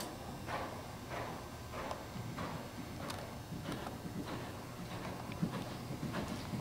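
Hoofbeats of a ridden Oldenburg gelding on the dirt footing of an indoor arena, a steady rhythm of about two beats a second as the horse goes from canter into trot.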